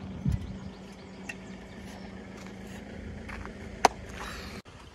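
Footfalls and knocks on an aluminium ladder leaning against a narrowboat's steel hull: a low thump just after the start, scattered light clicks, and one sharp click, the loudest, near the end. A brief hiss follows and cuts off suddenly.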